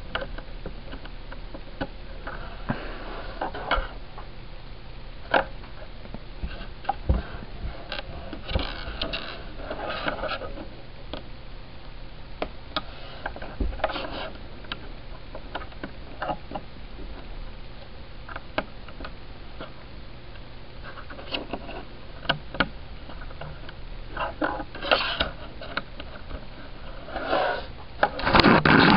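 Small plastic Lego pieces being handled, slid and pressed together on a tabletop: scattered light clicks and brief rubbing, with louder handling near the end.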